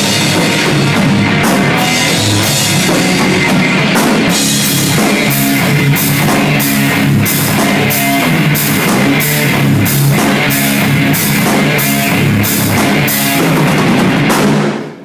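A heavy metal band playing live: distorted electric guitars over a pounding drum kit. In the second half, cymbals are struck about twice a second, and the music stops abruptly right at the end.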